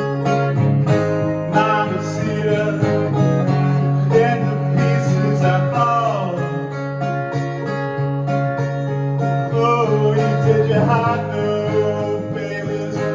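Live band playing an instrumental passage of a rock song: guitars with sustained chords over a steady beat, with one note sliding down in pitch about six seconds in.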